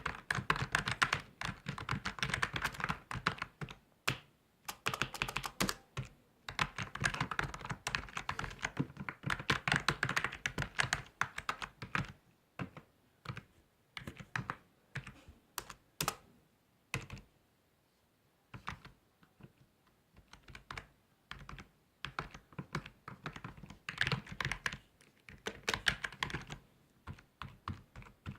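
Typing on a computer keyboard: rapid runs of keystrokes at first, thinning to scattered single key presses with a brief pause about two-thirds of the way through, then a quicker run again near the end.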